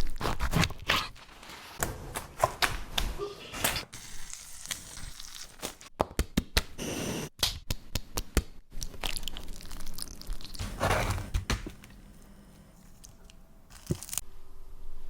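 Crusty sandwiches being handled, cut and pulled apart: crackling crunches, tearing and crinkling, with knocks and thunks, in a string of short clips that cut off suddenly several times.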